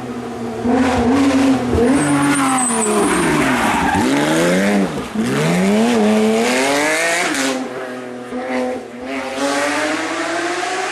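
Porsche rally car engine revving hard, its pitch rising and falling through the gears, with two sharp dips and fast climbs back up about four and five seconds in.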